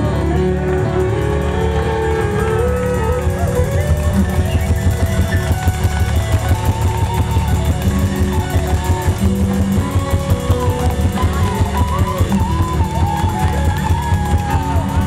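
Live band playing an instrumental passage of a rock ballad with no singing. A drum kit keeps a steady beat under bass, keyboard and electric guitar, with hand-played bongos and a saxophone, and a melody line bends and slides above them.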